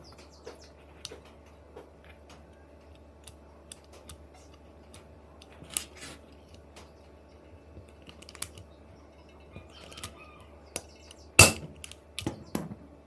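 INGCO hand riveter setting a blind rivet: scattered metallic clicks and ticks as the handles are worked, then one sharp loud snap about eleven seconds in, where the rivet's mandrel breaks off, followed by a few lighter clicks.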